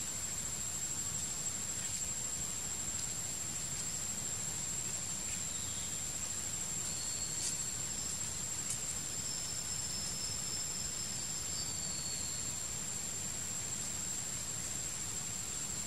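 Forest ambience: a steady high-pitched insect drone, cricket or cicada, over an even hiss and a low rumble. A few faint thin whistles and two brief clicks come about halfway through.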